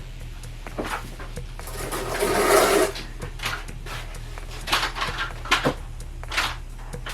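A scraping, rushing noise swells and stops about two to three seconds in, then several sharp knocks and clatters, over a steady low hum.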